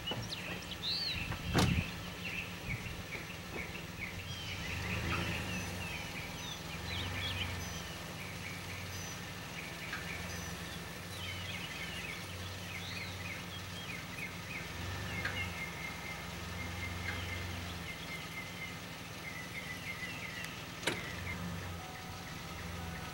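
Small birds chirping over a low vehicle engine hum that swells and eases as the boat trailer is slowly moved. Two sharp knocks, one about a second and a half in and one near the end.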